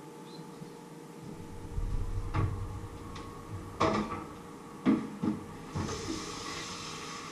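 Kitchen clatter: five sharp knocks of pots, pans or cupboard doors being handled at the sink and counter. A steady hiss starts about six seconds in.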